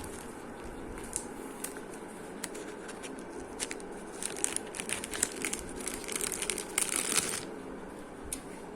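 Plastic packaging being handled, crinkling and rustling with scattered short clicks, and a longer, louder crinkle about seven seconds in.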